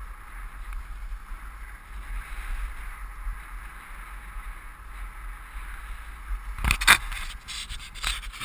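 Skis hissing steadily over packed, groomed snow, with wind rumbling on the helmet camera's microphone. Near the end come loud knocks and rubbing as a hand handles the camera, the loudest about seven seconds in.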